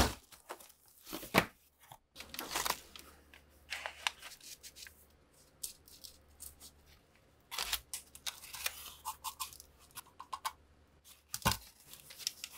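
Gloved hands handling a cardboard box and crumpled paper: irregular rustling, scraping and tearing, with a sharp knock at the very start and another near the end.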